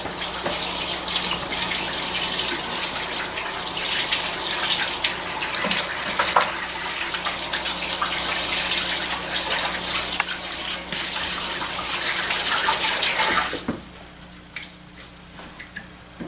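Kitchen tap running as hands are washed under it, then turned off about thirteen seconds in.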